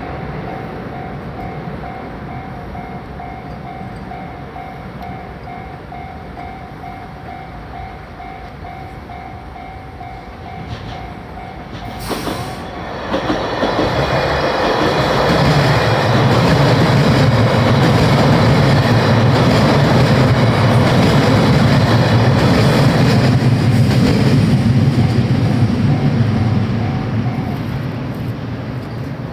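Japanese level-crossing warning bell dinging in a steady repeated pattern. About halfway in, a limited express electric train passes over the crossing with a loud rumble and clatter of wheels on the rails, which holds for over ten seconds and fades near the end while the bell keeps ringing beneath it.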